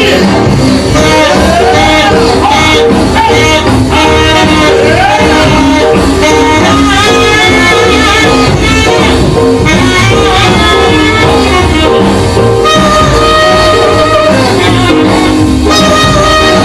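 Loud recorded band music with a lead line of held notes, some sliding between pitches.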